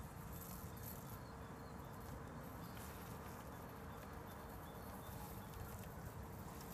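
Husqvarna Automower robotic lawn mower running on the lawn: a faint steady hum over a low, even outdoor rumble.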